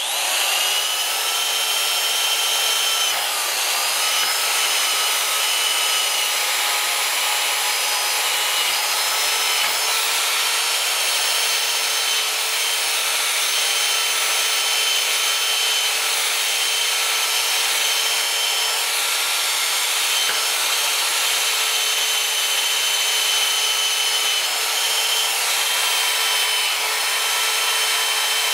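Motor-driven wire wheel brush spinning against a rusty steel eccentric block from an Allis-Chalmers tractor wheel, scrubbing off corrosion. It makes a steady whine with a hissing scratch of wire on metal, coming up to full speed at the very start.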